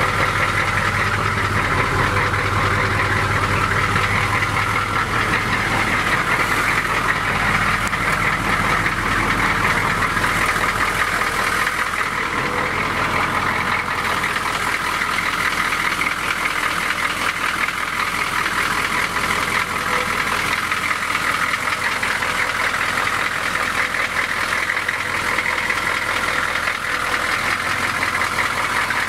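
GM 6.2 L diesel V8 of a K5 Blazer idling steadily.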